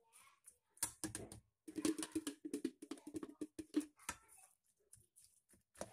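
Metal spoon stirring sweetened beans and jelly in a stainless steel bowl: rapid, irregular clicks and scrapes of metal on metal, busiest and loudest in the middle.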